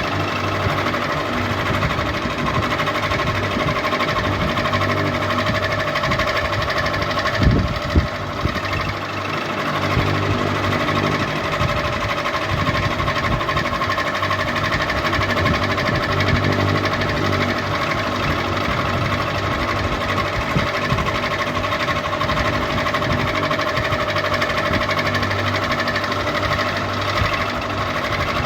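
Ceiling fan running steadily with a constant mechanical hum and an uneven low pulsing, with two sharp knocks about seven and a half seconds in.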